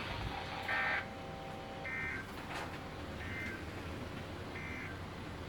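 Emergency Alert System SAME digital data bursts on NOAA Weather Radio during its Required Weekly Test: four short, harsh buzzing bursts about 1.3 s apart over steady radio hiss.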